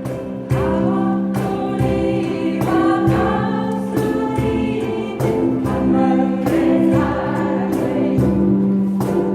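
A group of voices singing a Korean song together over instrumental accompaniment, with a steady beat of about two strokes a second.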